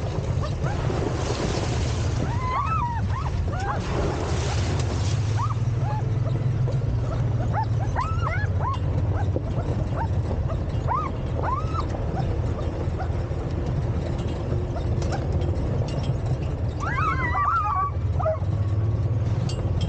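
Sled dogs yipping and whining as they pull, short rising-and-falling calls scattered throughout with a flurry near the end, over the steady low rumble of the wheeled cart rolling on the gravel trail.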